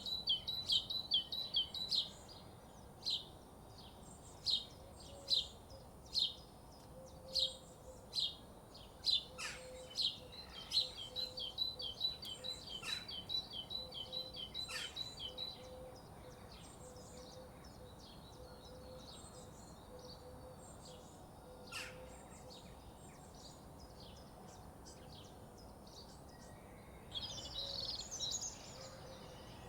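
Morning birdsong: rapid runs of high chirps, then slower single notes with a few downward-sweeping whistles. The song thins out about halfway through before a short burst near the end, over a faint low note repeating in the background.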